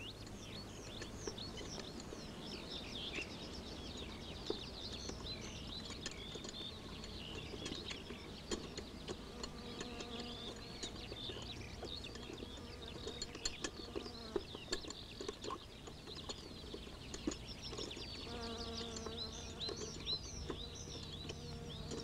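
Summer meadow ambience: many small birds twittering and chirping continuously, with insects buzzing. A buzzing insect with a steady pitch stands out for the last few seconds.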